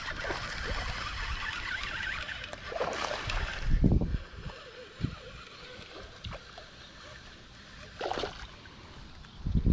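Baitcasting reel and line in use on a fishing rod: a steady whirring hiss for the first two seconds or so, then low knocks of the rod and reel being handled. About eight seconds in comes a short splash at the water's surface as a hooked bass is brought in.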